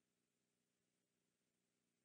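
Near silence: an essentially empty sound track.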